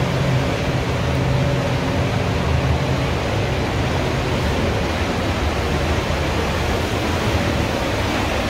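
Paint spray booth's ventilation fans running: a steady rush of moving air with a low motor hum underneath.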